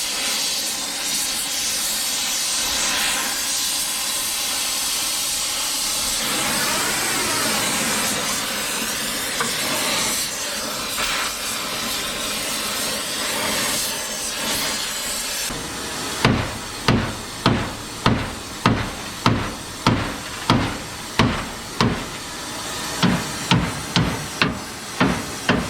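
A gas torch hisses steadily as it heats the dented steel bumper. About two-thirds of the way in, a hammer starts striking the heated steel in a steady run of ringing metal blows, about two a second, with one short pause, to bend it straight.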